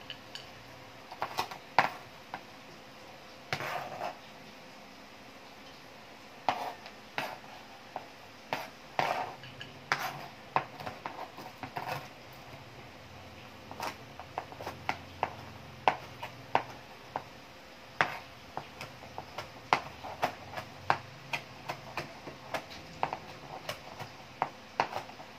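Kitchen knife chopping cooked chicken on a plastic cutting board: sharp knocks of the blade on the board, scattered at first, then a fairly steady run of about two chops a second from about halfway through.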